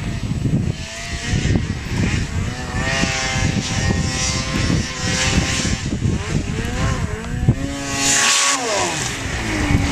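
Polaris snowmobile engine revving up and down as the sled churns through deep powder snow. Its pitch drops sharply about eight seconds in as the throttle comes off.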